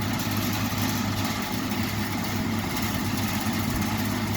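Vintage Westinghouse two-speed box fan running on high speed: a steady motor hum under a constant rush of air from the blades.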